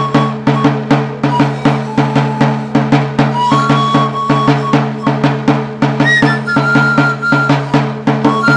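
Music with a quick, steady drum beat over a held low drone, and a melody of short high notes that step up and down.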